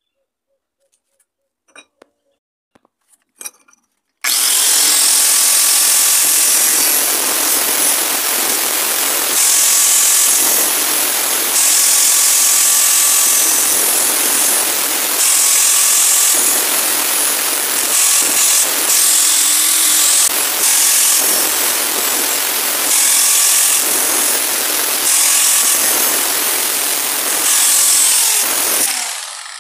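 Angle grinder with an abrasive disc cutting through a round metal tube along a marked curve, sparking. It starts about four seconds in after a few faint handling clicks, runs steadily with a harsher hiss each time the disc bites into the metal, and winds down just before the end.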